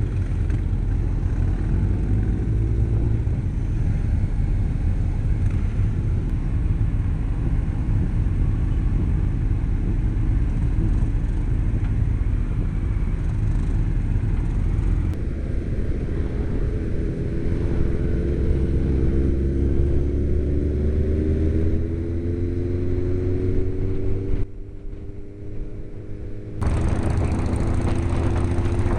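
Motorcycle engines with heavy wind rumble on a helmet-mounted microphone at road speed. From about halfway, an engine note rises steadily as a bike accelerates. Near the end the sound drops abruptly for about two seconds and cuts back in just as suddenly.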